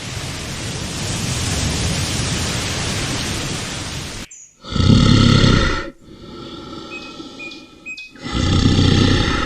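A large animal's calls: a long rough, noisy sound for about four seconds, then two loud low calls about a second long each, roughly three and a half seconds apart.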